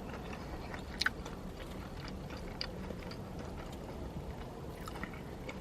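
Quiet chewing, with a few faint mouth clicks, one a little louder about a second in.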